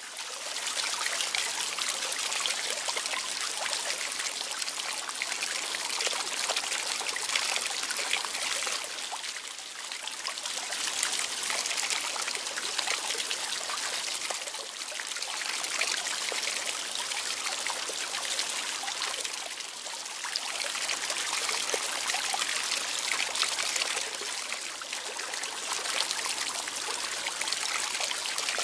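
Running water trickling and splashing steadily, a dense fizzing patter with slight swells and lulls every few seconds.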